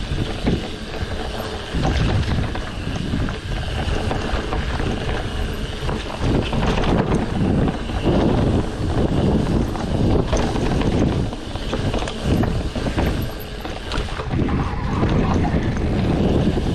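Wind rushing and buffeting over the microphone of a moving mountain biker's camera, with irregular knocks and rattles from the bike going over rough ground.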